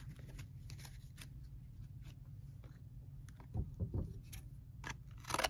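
Faint, scattered clicks and rustles of trading cards being handled and shuffled, over a low steady background hum.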